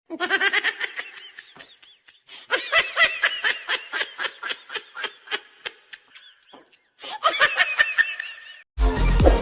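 Laughter sound effect: quick repeated 'ha' pulses of laughing in three runs with short gaps between them. Electronic music with a bell-like tone cuts in near the end.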